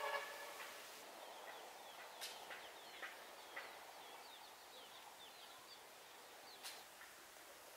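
Chickens calling: a short, harsh call at the very start, then a run of small high chirps from about two to five seconds in, with a few faint clicks.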